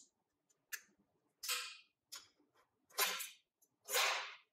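Loose screws and steel clamp parts clattering and sliding on the sewing machine's metal work plate as the clamp is unscrewed and taken off, about five sharp metallic clatters roughly a second apart.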